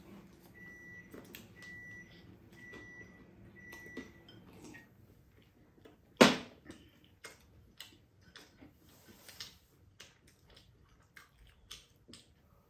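An electronic appliance beeps four times, about once a second, over a low steady hum that stops soon after the last beep. About a second later comes a single sharp knock, the loudest sound, followed by light scattered clicks of chopsticks and dishes at the table.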